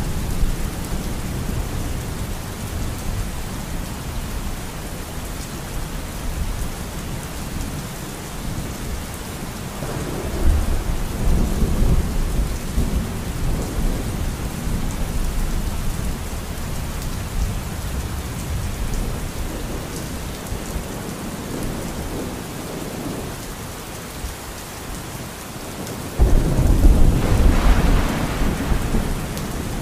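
Steady rain with thunder rumbling, swelling about ten seconds in and again, louder, a few seconds before the end.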